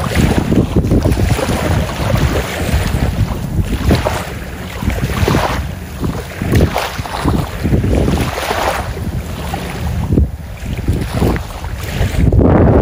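Wind blowing across the microphone in uneven gusts, rising and falling every second or so.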